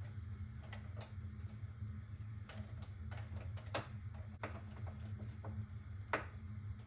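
Scattered small clicks and taps of tools and wire against a metal breaker panel while a breaker is wired in, the two sharpest just before four seconds and about six seconds in, over a steady low hum.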